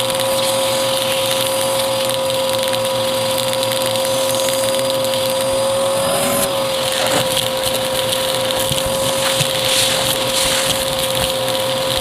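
Vacuum cleaner running steadily with a high motor whine and rushing air, and scattered crackles and ticks of debris being sucked up; the whine wavers and drops slightly about six and a half seconds in.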